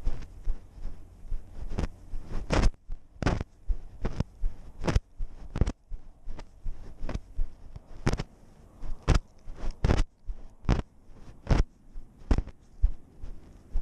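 A cat's footsteps through dry grass, picked up as short thuds and rustles by a GoPro strapped to its body, about two a second.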